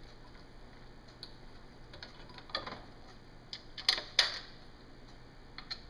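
Clicks, taps and a short scrape from hands working the white plastic cap and locking pin of a TV flex-arm mount, with two sharper clicks a few tenths of a second apart about four seconds in.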